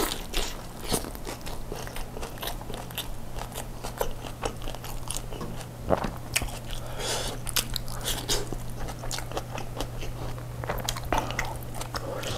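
A person biting into and chewing a Turkish kebab wrap close to a clip-on microphone: a steady run of short mouth clicks and smacks, with one sharper click about six seconds in.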